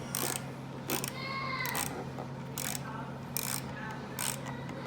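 3/8-inch drive Pittsburgh hand ratchet clicking in short bursts on its back-swings, five or six bursts spaced unevenly, as a chair bolt is tightened.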